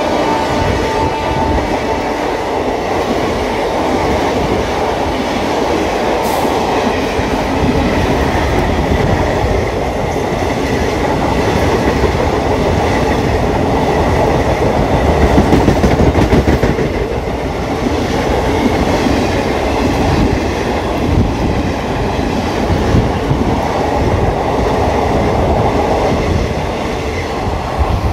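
Passenger train coaches passing at speed close by: a steady loud rush of wheels on rail with clickety-clack over the rail joints, loudest about halfway through. A locomotive horn note cuts off about a second in.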